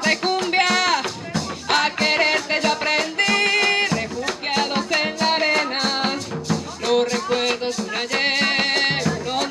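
Live Colombian cumbia played instrumentally: a wavering melody line over a shaken rattle and drums keeping a steady, even beat.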